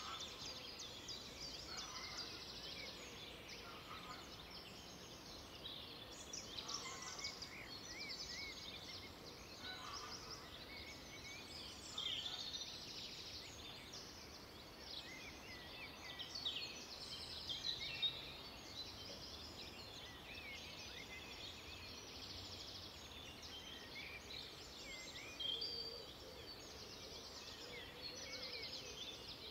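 Several small songbirds singing and calling at once: a dense, faint run of short high chirps and trills, with a few louder calls now and then.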